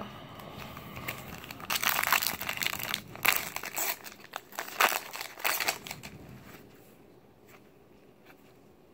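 Trading-card pack wrapper being torn and crinkled open by hand, in a run of loud crackly rustling from just under two seconds in to about six seconds in, then only faint handling.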